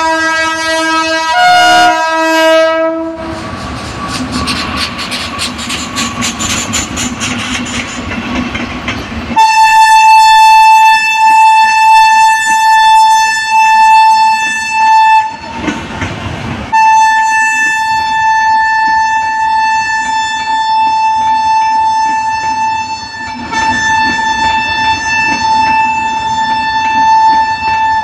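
An Indian Railways electric locomotive horn sounds, and a train of passenger coaches runs past with its wheels clattering over the rail joints. A horn opens the clip, the wheel clatter follows for several seconds, and then a long steady horn blast is held for most of the rest with one short break.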